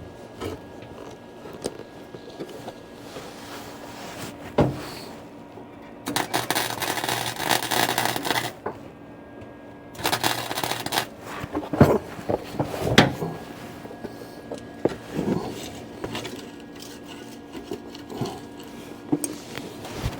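Electric welder arc crackling in two short bursts, about two and a half seconds and then about one second, as seams are welded on a car's underside. Scattered knocks and clicks of handling fall between them, over a faint steady hum.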